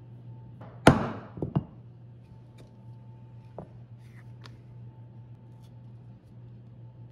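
One sharp knock about a second in, then two lighter knocks half a second later, from hard tools being handled and set down on a workbench, followed by a few faint ticks.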